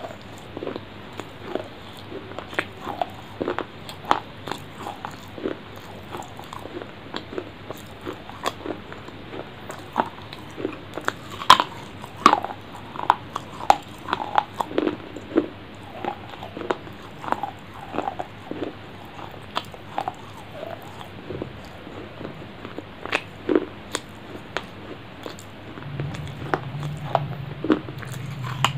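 Close-miked eating: a person biting and chewing with many short wet mouth clicks and lip smacks right at a clip-on microphone. A low hum comes in near the end.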